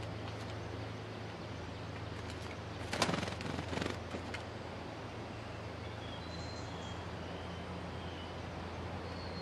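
Stripe-throated bulbul calling: a harsh rattling chatter about three seconds in, then a few faint, short, high whistled notes, over a steady low hum.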